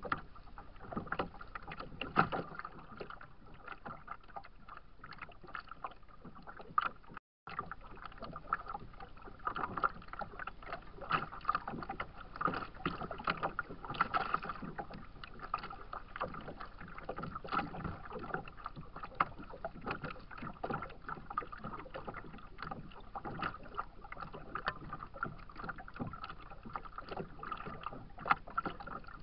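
Choppy lake water slapping and splashing against a plastic kayak's hull in frequent, irregular small splashes. The sound drops out for a moment about seven seconds in.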